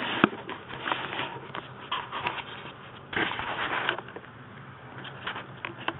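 Maine Coon kittens crunching dry kibble from stainless steel bowls: irregular crunches and sharp clicks, with a louder rustling stretch a little past halfway.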